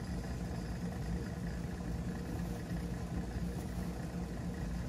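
Steady hum of a Landis outsole stitching machine's electric motor running idle.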